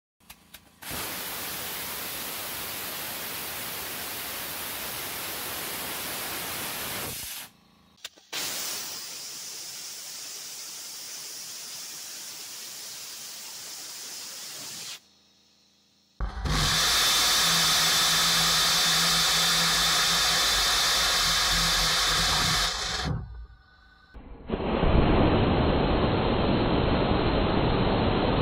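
Small aerospike rocket engine burning compressed air and gaseous propane: its exhaust jet makes a steady, loud rushing hiss. The hiss comes in four separate stretches, each starting and stopping abruptly, and the third stretch is the loudest.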